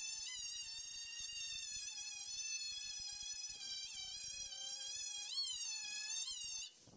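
Corded power tool spinning a wire brush against a steel body panel, stripping paint and rust. Its motor gives a steady high whine whose pitch wavers and dips as the brush is pressed on the metal, and it stops abruptly near the end.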